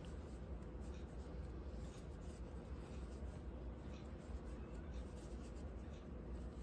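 Soft scratching and rubbing of cotton yarn being pulled through and over a metal crochet hook as stitches are worked, with faint small ticks, over a steady low hum.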